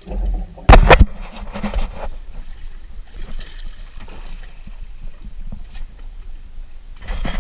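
Water splashing and sloshing against the side of a small fishing boat as a hooked fish is brought up to the surface beside the hull. There is a sharp, loud knock or bump about a second in.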